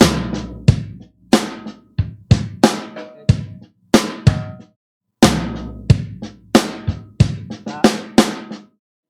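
Electronic drum-kit pattern from a keyboard: a run of sharp kick, snare and hi-hat hits, with the sound dropping out to silence between some groups of hits.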